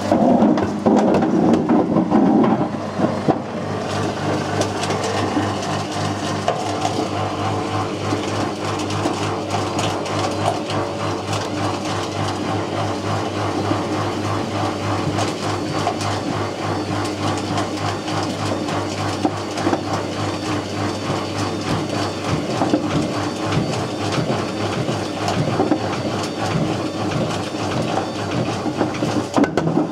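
Whirlpool WWDC 7210/1 washing machine with its drum turning and a brick tumbling inside, clattering and knocking without a break over a steady motor hum. The clatter is heavier in the first few seconds.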